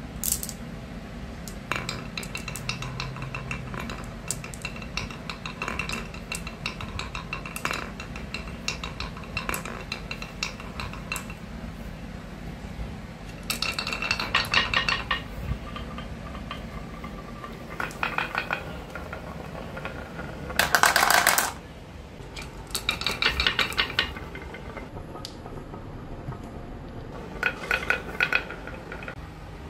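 Glass marbles clicking and rattling as they roll down a marble run and knock against each other and the track, in quick clusters of clatter. The loudest is a dense rattle lasting under a second about two-thirds of the way through.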